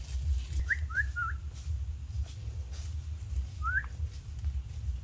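Barefoot footsteps on dry leaf litter under a low rumble, with short high rising chirps: three quick ones about a second in and a single one near four seconds.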